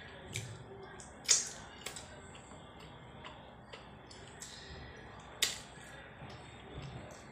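Eating by hand from a plate: a few sharp clicks and smacks, two louder than the rest, about a second in and again past five seconds, over soft sounds of food being mixed.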